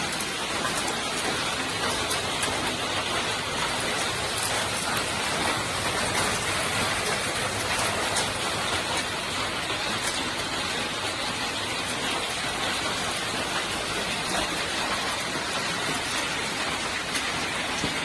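Hailstorm with heavy rain: a dense, steady hiss of falling precipitation, thick with small sharp ticks of hailstones striking the ground and nearby surfaces.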